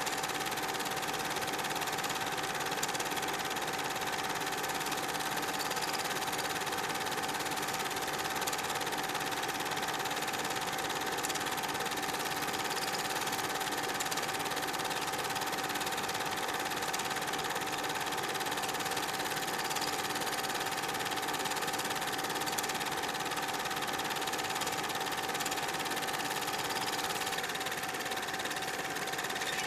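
Super 8 film projector running: a steady mechanical whir with a constant whine.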